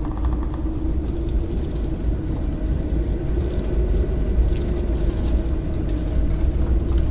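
Haunted-house sound-effect ambience: a steady deep rumble with a sustained droning tone over it and a few faint ticks.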